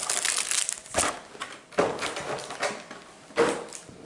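Clear plastic blister tray crackling and foil Pokémon booster-pack wrappers crinkling as the packs are pulled out of the tray, in irregular bursts with several sharp crackles.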